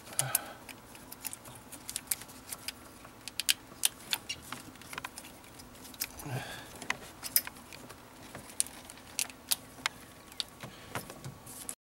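Irregular sharp clicks and rattles of plastic electrical connectors being handled and pushed back onto the engine wiring harness plugs at the fuel rail of a 2.4 L Ecotec engine.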